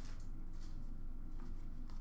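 Steady low hum of room tone, with faint soft handling of trading cards and a small tap about one and a half seconds in.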